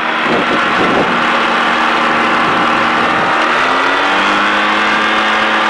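The Quad City Challenger II ultralight's engine and propeller run steadily, and the engine note shifts slightly about three to four seconds in. The fan-cooled engine is running hot, and the pilot suspects a broken fan belt.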